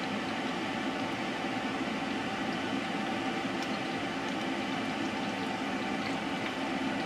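Stew simmering in an enamelled cast-iron pot on the stove: a steady, even hiss with a faint steady hum underneath.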